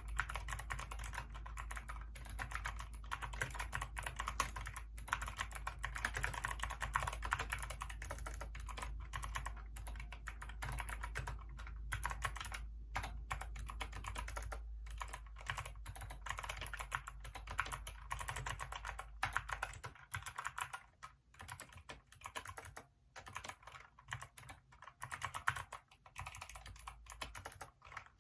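Typing on a Hacker K611 mechanical keyboard with Kailh optical switches: rapid, dense keystrokes clacking continuously. After about twenty seconds the typing thins into shorter bursts with pauses between them.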